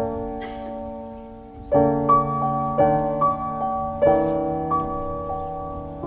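Jazz piano chords, each struck and left to ring out and fade, a new chord every half second to a second: the instrumental intro of a jazz hip-hop beat, with no vocals.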